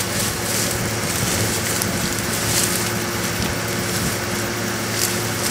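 Vehicle engine idling steadily, a constant low hum under an even hiss.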